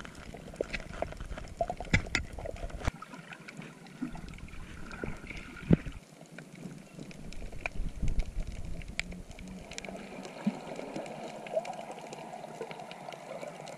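Underwater sound picked up by a submerged camera: a muffled, hissing water ambience with many scattered sharp clicks and crackles.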